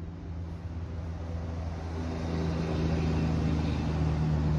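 An engine running steadily with a low hum, growing gradually louder.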